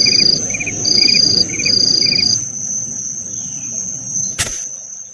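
Night insect chorus: a continuous high trill like crickets, with short chirps about twice a second and three longer high buzzes over a low rumble. The chirps, buzzes and rumble stop about two and a half seconds in, leaving the trill alone, and a single sharp click sounds about four seconds in.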